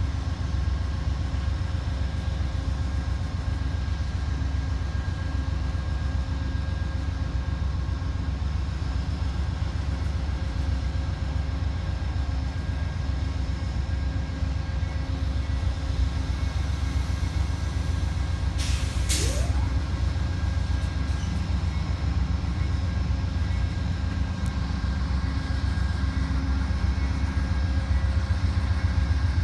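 Diesel locomotive idling with a steady low rumble. A short hiss of released air comes about two-thirds of the way through.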